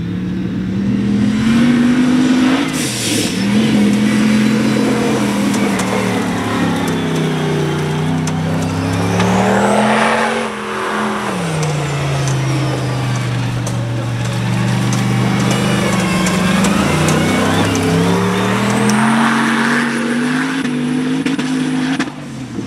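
Formula Offroad buggy engines revving hard as the cars climb a steep sand hill under full load. The engine pitch rises and falls with the throttle, drops about ten seconds in, then climbs again near the end.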